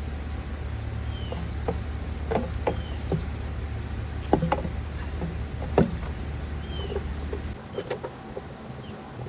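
A steady low machine hum that cuts off about seven and a half seconds in, with scattered knocks and clicks from handling work and a few short bird chirps.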